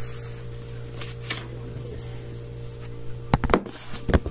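Handling noises: a few soft clicks and rustles, one about a second in and a cluster after three seconds, over a steady low hum.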